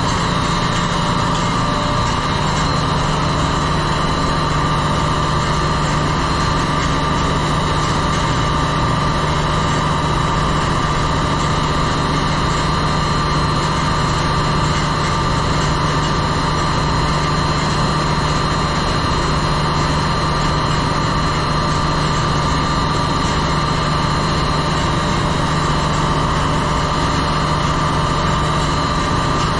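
Ship's engine-room machinery running steadily: a loud, even drone with a low hum and a higher whine held at constant pitch.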